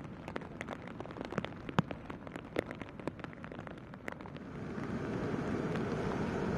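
Rain falling, with many sharp, close taps of single raindrops. About four and a half seconds in, this gives way to a steady, louder rush of surf breaking on the beach, with wind.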